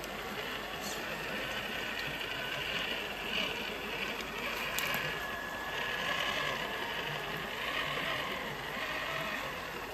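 Electric motor and geared drivetrain of an RC scale crawler whirring as it drives, over the steady rush of creek water.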